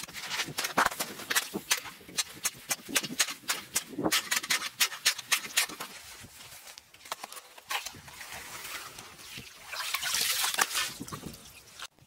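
Metal ice chisel jabbing at the ice around a fishing hole: a quick run of sharp chipping knocks, with a stretch of rougher scraping through slush near the end.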